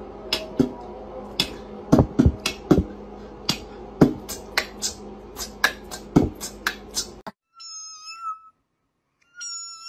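Sharp, irregular clicks about twice a second over a steady hum, which fit a cat's claws clicking on a hard tile floor. After they stop, two short high-pitched cries are heard.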